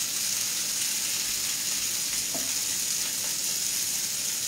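Sliced artichokes frying in a pan with oil, giving a steady sizzle.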